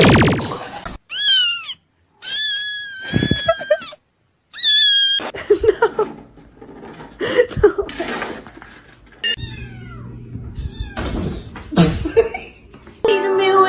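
Cats meowing: several separate meows, some falling in pitch, with knocks and rustling between them. Music starts near the end.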